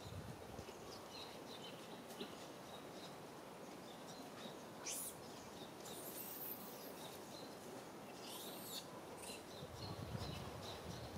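Faint outdoor ambience: a steady low background with short high chirps repeating throughout, and a few brief high hissing bursts about five, six and eight seconds in.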